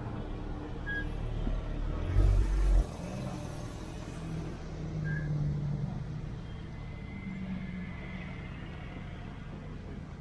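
Sports cars rolling slowly past one after another at low revs, led by a Porsche 911 GT3's flat-six, followed by BMW coupes. About two seconds in, a short deep boom is the loudest moment.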